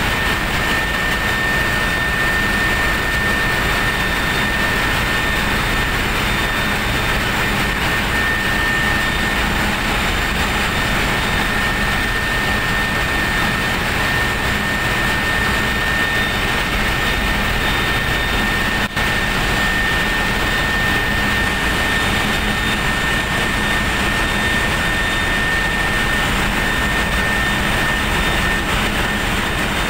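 Constant loud machinery drone of running engines, with a thin steady high whine over it; it drops out for an instant about nineteen seconds in.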